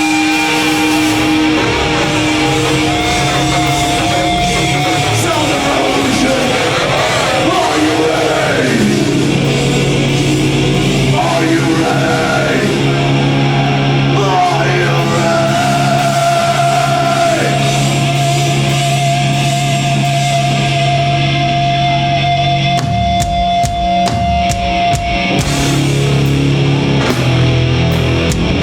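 Heavy metal band playing live and loud: long held, distorted guitar notes and sliding tones, with drum and cymbal hits coming in near the end.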